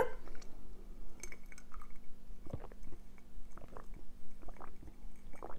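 Mouth sounds of a person chewing food and gulping water from a glass mug: soft, irregular wet clicks and swallows.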